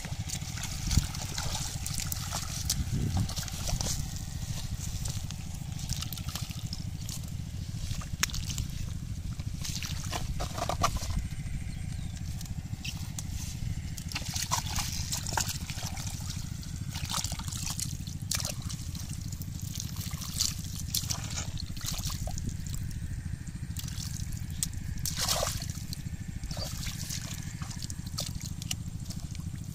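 Bare feet and hands working in shallow muddy water: irregular splashes, squelches, trickles and drips, over a steady low rumble.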